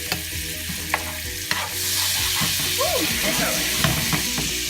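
Onion and minced garlic frying in butter in a pan: a steady sizzle that gets louder about two seconds in. A few clicks of a utensil stirring in the pan early on.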